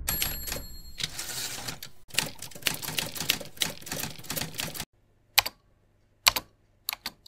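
Typewriter keystroke sound effect: a rapid run of key clacks for about five seconds, then a few single strokes spaced apart.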